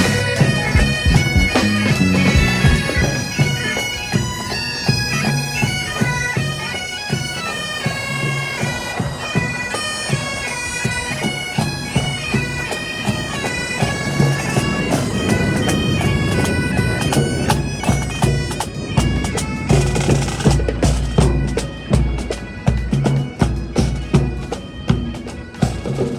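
Bagpipes playing a melody, with drums; a strong, even drumbeat joins in about twenty seconds in.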